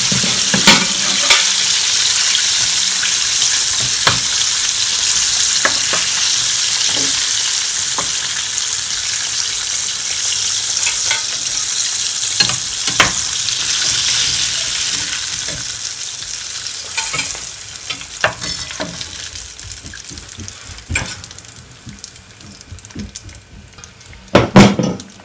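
Flour-coated fish deep-frying in a stainless steel saucepan of hot oil: a dense, steady sizzle, with a metal spatula tapping against the pan every few seconds. The sizzle dies down over the last several seconds as the fish is lifted out of the oil, and a louder knock comes near the end.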